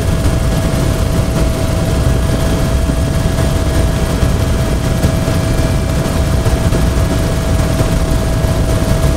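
Helicopter in flight heard from inside the cockpit: a loud, steady drone of turbine and rotor, heaviest in the low end, with a thin steady whine above it.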